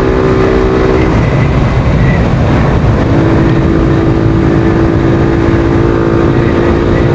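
Suzuki Thunder 125 single-cylinder four-stroke engine running while the motorcycle is ridden, with heavy wind rumble on the microphone. The steady engine tone drops away about a second in and comes back about three seconds in, as if the throttle is eased off and reapplied.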